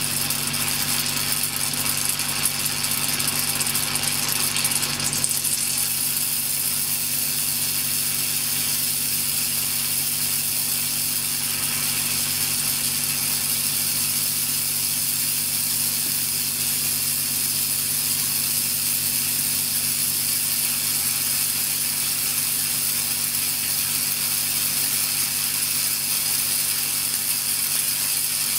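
Electric discharge at a wire electrode in salt water: a continuous, dense crackling with a low steady hum underneath. The crackle shifts slightly in tone about five seconds in.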